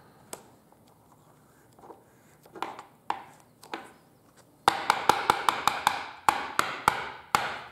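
Trading card being put into a hard plastic card holder: soft handling rustles, then about halfway through a quick run of around a dozen sharp plastic clicks and taps.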